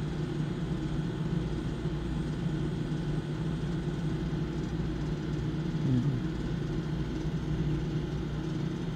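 Steady low rumbling hum of background noise, with no change in its level.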